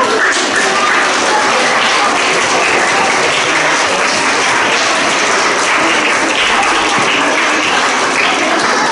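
An assembly hall audience of schoolchildren applauding steadily.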